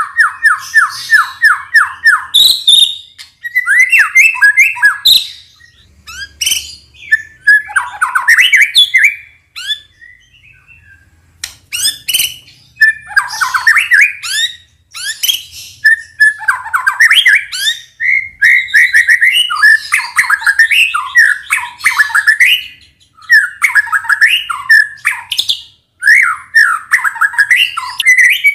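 White-rumped shama (murai batu) singing loudly: a quick run of repeated notes at the start, then a long string of varied whistled and chattering phrases, with a short pause about ten seconds in.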